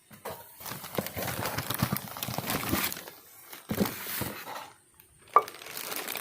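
Packaging rustling and crinkling as it is handled, in irregular bursts, with one sharp knock about five seconds in.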